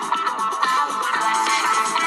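Electronic-style music playing from a smartphone's built-in stereo speakers, thin with almost no deep bass.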